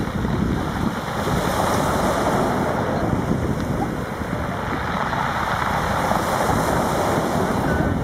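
Wind buffeting the microphone over the wash of choppy sea waves, a steady rushing noise.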